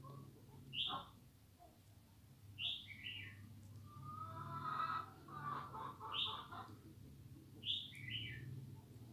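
A bird chirping, short high chirps every second or two, some in quick pairs with the second one lower, over a steady low hum.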